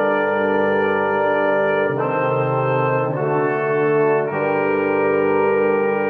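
Orchestral brass section of trumpets, French horns and tuba playing loud, sustained full chords, moving to a new chord three times.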